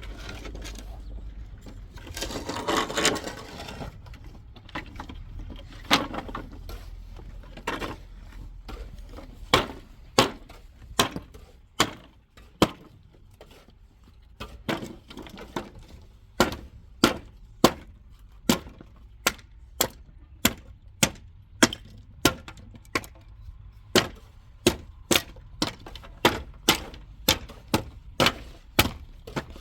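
Sharp knocks of a tool striking building material, repeated at about two a second, with a short rattling scrape about three seconds in.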